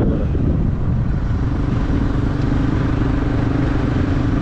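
Motorcycle engine running at a steady road speed: a continuous drone with road noise, its tone becoming more distinct about a second in.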